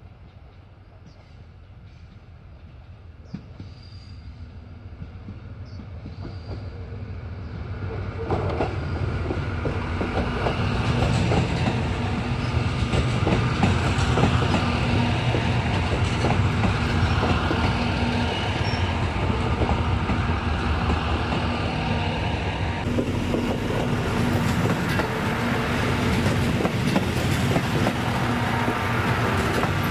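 Diesel railcar train, KiHa E130-series units, approaching and passing close. Its engine hum and running noise grow steadily louder over the first ten seconds or so. It then holds a steady engine drone with the rattle and clicks of the wheels on the rails as the cars go by.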